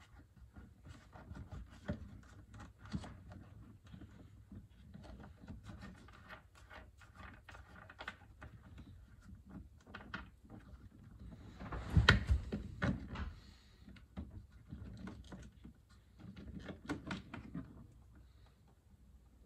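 Scattered clicks, taps and rattles of hands fitting a switch and its back nut into a boat's helm dash panel, with a louder cluster of knocks and scraping about twelve seconds in.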